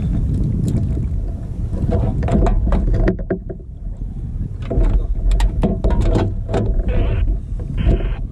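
Wind rumbling on the microphone in open water, with irregular knocks and rattles from a fish and gear being handled on a plastic kayak. Two short hisses come near the end.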